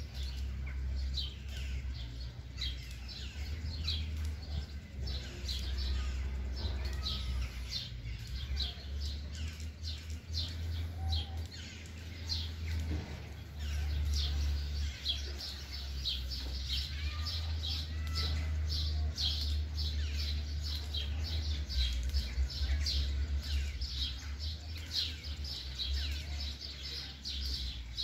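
Small birds chirping and calling continuously, many short high chirps following one another quickly, over a steady low rumble.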